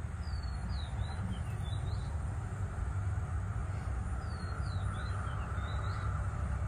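A songbird sings two short phrases of quick, high, falling chirps, about four seconds apart, over a steady low background rumble.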